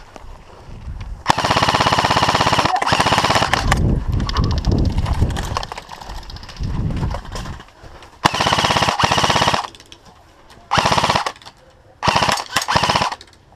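Airsoft guns firing on full auto in several rapid bursts, the first about a second in and the longest, the rest shorter with pauses between.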